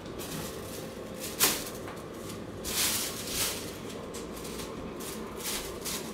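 Thin plastic bag crinkling and rustling in short bursts as a cat paws at it on top of an air purifier, with one sharp knock about a second and a half in. Under it runs the purifier's steady fan hum, whose airflow keeps the bag inflated.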